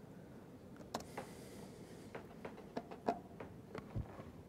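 Faint, scattered clicks and taps of a laptop being operated, over quiet room tone, with a soft low thump near the end.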